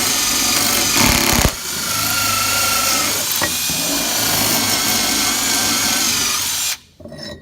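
Power drill with a carbide-tipped multi-purpose bit drilling into concrete: a steady grinding run that dips briefly about a second and a half in, then carries on and stops near the end.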